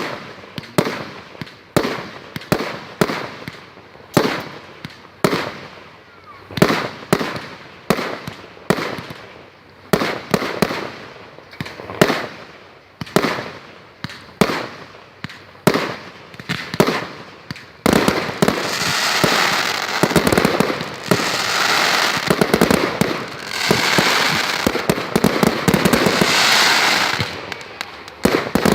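Fireworks going off: a quick string of sharp bangs, about two to three a second, then about two-thirds of the way in a dense, continuous crackling that swells and eases in waves.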